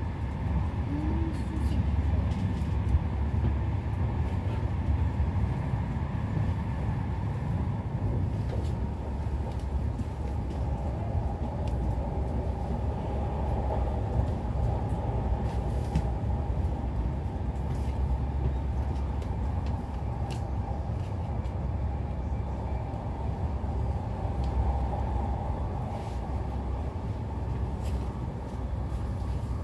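Passenger-cabin noise of an intercity train running at speed: a steady low rumble of wheels on the rails, with a few sharp clicks scattered through it.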